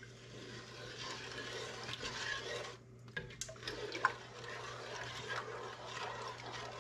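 Wooden spoon stirring a jelly mixture of wild onion water, sugar and pectin in a pot, a steady swishing slosh with a few sharp knocks of the spoon against the pot, the loudest about four seconds in.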